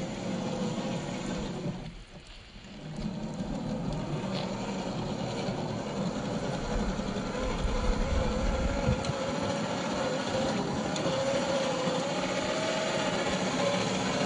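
Electric motor and drivetrain of a 1/10-scale RC crawler on an SCX10 III chassis running, a whining tone that wavers up and down in pitch with the throttle. The sound drops away briefly about two seconds in, then picks up again.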